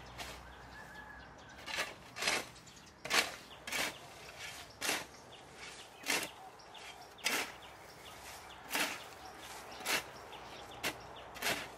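A hoe chopping and scraping into dry, crumbly soil in repeated short strokes, roughly one a second and not evenly spaced.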